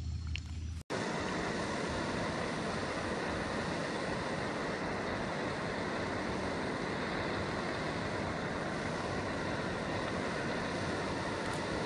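Backpacking canister gas stove burning at a steady, even hiss under a pot of water being heated. The hiss starts abruptly just under a second in, after a brief gap.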